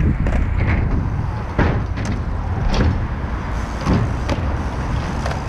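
Mountain bike riding on skatepark concrete: a steady low rumble with several sharp knocks and clatters scattered through.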